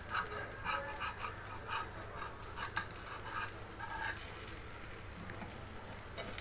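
Slotted spatula scraping around and under a dosa in a nonstick frying pan, a series of short irregular scrapes, as the dosa is loosened before flipping.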